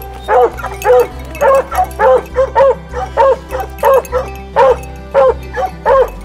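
Hunting hound barking over and over in a steady rhythm, about two loud barks a second, with background music underneath.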